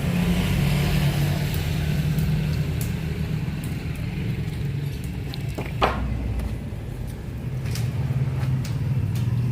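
An engine or motor running steadily with a low hum, with a few light clicks and one sharp knock about six seconds in.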